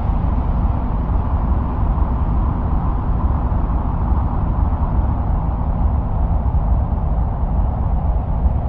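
Steady, low rumbling wind-like noise, presented as audio recorded on Mars, heaviest in the deep bass with no distinct knocks or tones.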